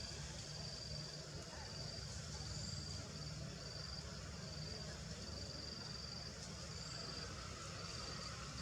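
Insect chirping: short high-pitched pulses repeating evenly, about three every two seconds, over a steady low rumble.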